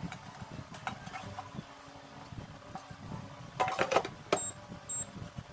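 Light plastic clicks and rattles as an air fryer's drawer and basket are handled, then a burst of clattering about three and a half seconds in as the drawer is slid into the Xiaomi air fryer, ending in a sharp clack as it seats. Two short high-pitched beeps follow near the end.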